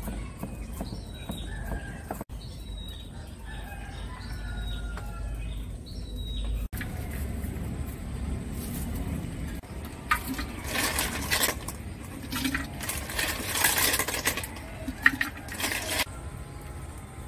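Chickens clucking and small birds chirping in the background over a low rumble. From about ten seconds in comes a run of loud, short rustling and clattering handling sounds as ingredients and kitchenware are worked with.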